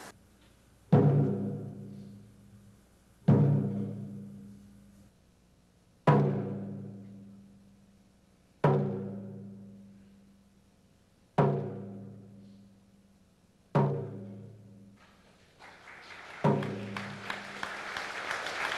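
Large barrel-shaped taiko drum struck with single heavy beats, about one every two and a half seconds, each a deep boom that rings out and fades before the next. Near the end, applause rises under the last strike.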